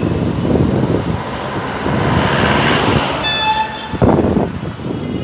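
Street traffic rumbling, with a short vehicle horn toot about three seconds in and a sharp knock a moment later.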